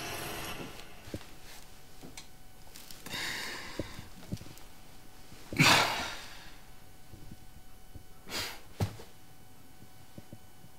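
A young man breathing out heavily in sighs: a softer breath about three seconds in, a loud sigh about halfway through, and another shorter one a couple of seconds later. Faint small clicks fall between the breaths.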